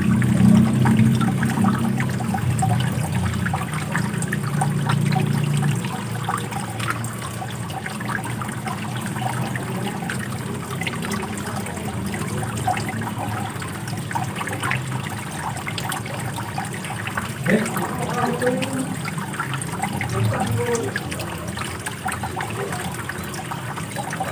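Running water flowing and splashing in a steady rush, a little louder for the first several seconds.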